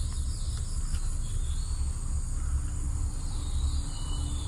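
Insects trilling steadily in riverside vegetation, with a few short chirps, over a low rumble.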